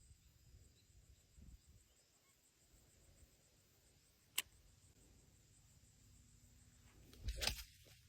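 Near silence with a faint background hiss, broken by one sharp click about halfway through and a short, louder rustle or knock near the end.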